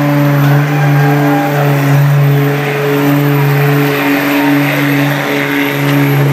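Diesel pickup truck engine running hard at high, fairly steady revs under load as it pulls a weight sled down the track.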